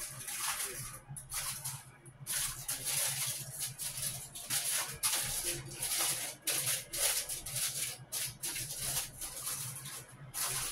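Irregular rustling and crinkling: a rapid run of short, hissy, high-pitched bursts with brief gaps, over a low steady hum.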